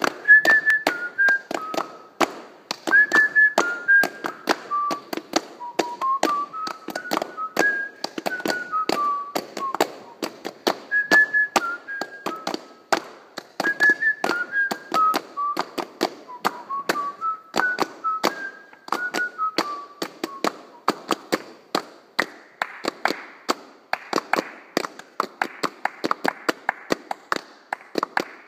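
Hand claps keeping a steady rhythm while someone whistles a tune over them. About 21 seconds in the whistling stops, and the clapping goes on fuller, as from several people.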